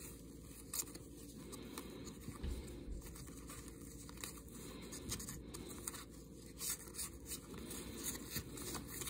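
Trading cards being flipped through by hand, one card at a time: faint, irregular flicks and slides of card stock over a low, steady background hum.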